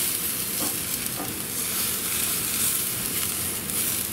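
Hamburger patties sizzling on the grate of a propane gas grill: a steady frying hiss, with a few light touches of a metal spatula against the grate.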